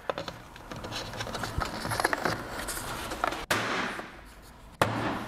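Hands fitting a mohair pile weatherstrip into its groove along a window sash: crackly rustling and scraping with many small clicks.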